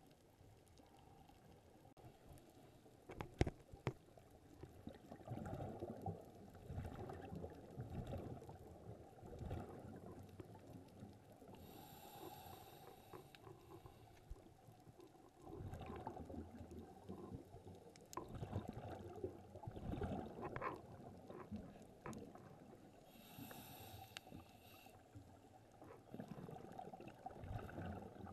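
Muffled underwater sound heard through a camera housing: a scuba diver's breathing, with gurgling rushes of exhaled bubbles and a short regulator hiss on two inhales about eleven seconds apart. Two sharp clicks come a little over three seconds in.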